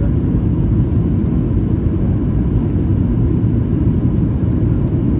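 Steady low rumble of a Boeing 737-800's cabin on approach, from the engines and the airflow heard from a window seat, with no change or clunk through it.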